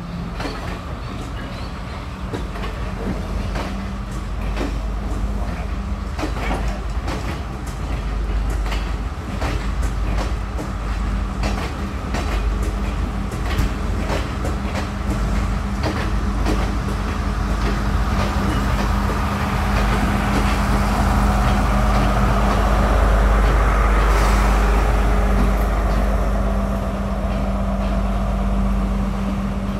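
Diesel passenger train moving slowly along the track: a steady engine drone with regular clicks of wheels passing over rail joints. It grows louder about two-thirds of the way through as the power car draws near.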